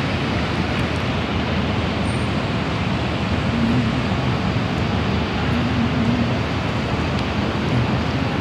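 Steady city traffic and construction-site noise: a continuous rumble and hiss with no distinct events.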